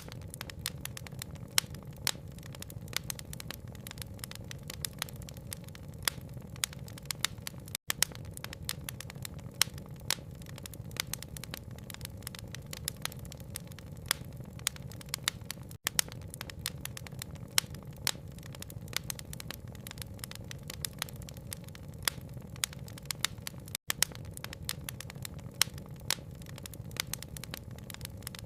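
Fire crackling with many sharp pops, several a second, over a steady rain patter. The whole sound drops out for a split second about every eight seconds, where the recording loops.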